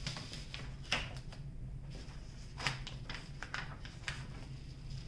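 Quiet, scattered crinkles and crackles of a diamond painting canvas and its half-peeled release paper being handled and pressed flat. There are a few sharp ones about a second apart, over a faint steady hum.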